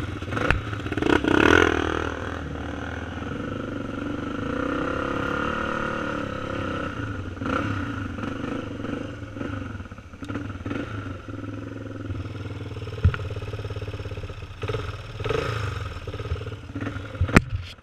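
Yamaha TT350 single-cylinder four-stroke dirt bike engine running on a rocky trail, revving up and back down in the first couple of seconds, then running steadily with gravel clatter. There is a sharp knock past the middle and a cluster of sharp knocks and clatter near the end.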